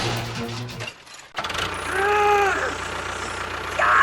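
An engine running steadily at idle, dropping out briefly about a second in. About two seconds in there is a short voice-like call that rises and falls, and near the end a brief noisy burst.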